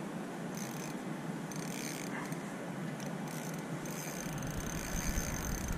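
Spinning reel whirring in short spells as a hooked trout is reeled in on a bent rod, over a steady hiss. A low rumble joins about four seconds in.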